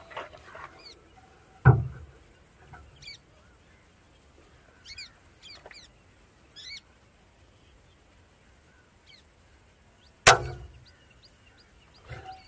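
A single shot from a .177 Precihole NX-100 spring-piston break-barrel air rifle about ten seconds in, a sharp crack with a low thud. A dull thump about two seconds in, and birds chirping in short, quick falling calls.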